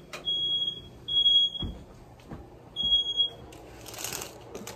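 Household smoke alarm going off, sounding a loud, high-pitched beep three times in quick succession, then a pause and another beep.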